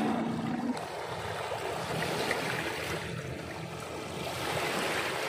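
Small sea waves washing on the shore: a steady rushing hiss that swells, eases and swells again. A brief low hum sounds at the very start.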